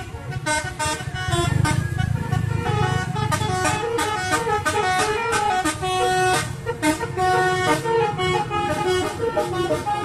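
Bus telolet horn, a multi-note air horn, playing a quick tune of short stepped notes as the bus passes close by, over the low running of the bus engine.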